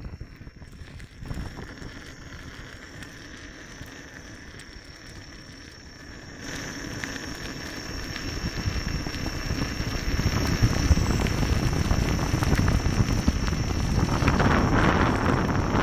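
Tyre of a Gotway MSuper3 electric unicycle rolling over a dirt and gravel path, a crackling, gritty crunch mixed with wind rumbling on the microphone and a faint steady high whine. Quieter at first, it grows clearly louder from about six seconds in.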